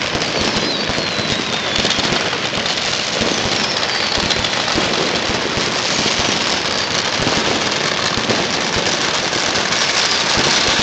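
Dense, unbroken crackle and popping of many firecrackers and fireworks going off at once, with a few high whistles falling in pitch.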